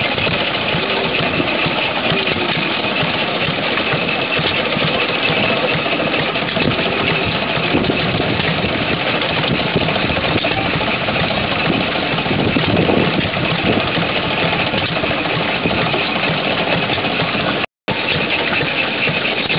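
Antique gasoline engines running steadily, their firing strokes coming in a rapid, even run. The sound cuts out for a moment near the end.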